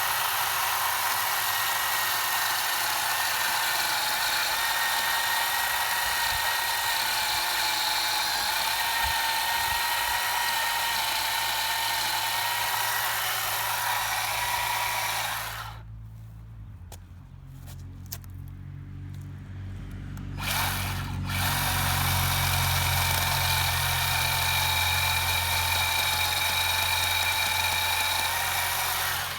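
WORX 20V cordless electric chainsaw running with a steady high whine as it cuts into a log that is too thick for it. About halfway through it stops for around five seconds, gives a short burst, then runs steadily again.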